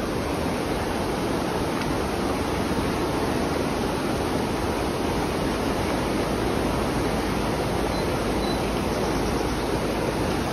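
Fast-flowing mountain river rushing steadily, an even, unbroken wash of water noise.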